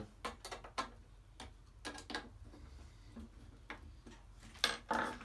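Irregular light clicks and taps of metal parts being handled on a projector ceiling-mount bracket, with a louder pair of clinks near the end.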